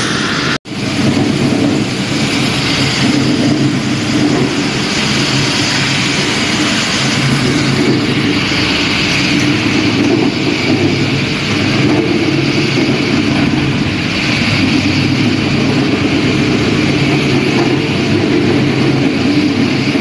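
Electric floor grinding machine grinding dry concrete: a loud, steady motor drone with a gritty scraping hiss from the disc on the floor. It cuts out for an instant under a second in.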